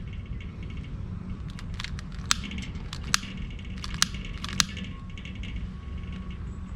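Tumbleweed fire starters being lit: a few sharp, separate clicks and crackles over a steady low background rumble.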